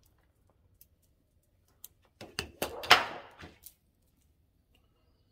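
Saw chain being handled at the grinder: a cluster of metal clicks and knocks with a short rattle of chain links, loudest about three seconds in.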